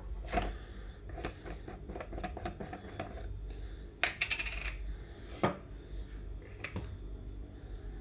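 A clear plastic jar's white screw lid being handled and twisted off on a granite countertop: a run of small plastic clicks, then a sharper clack about four seconds in as the lid is set down, followed by a few single taps of the plastic scoop.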